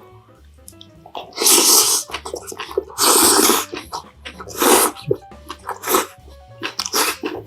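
Close-miked mukbang eating sounds: four loud, slurping gusts about a second and a half apart, with crisp crunchy chewing clicks between them, as of bean sprouts and soup being eaten.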